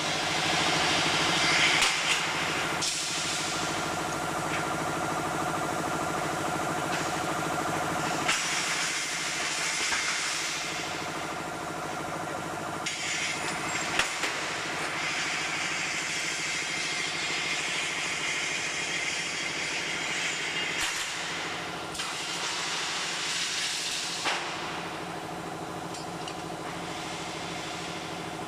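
Steel rebar shearing line running: a steady machine hum with a hiss over it, shifting pitch a couple of times, broken by a few sharp metallic knocks as the bars are cut and handled.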